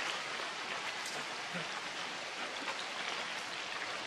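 Steady rain falling, an even hiss at a constant level with faint scattered taps of drops.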